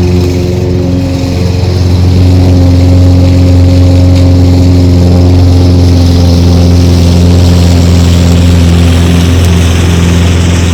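Toro Smart Stow self-propelled gas lawnmower engine running steadily and loud, with a slight dip about a second in.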